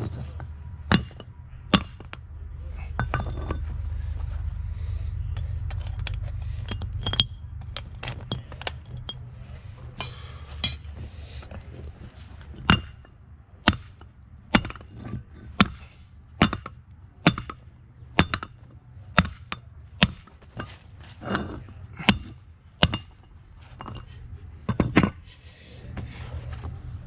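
Metal ingot mould knocked upside down against a concrete paver to free a freshly cast aluminium ingot: a run of about a dozen sharp metallic knocks, roughly one a second, in the second half, after a couple of clanks near the start.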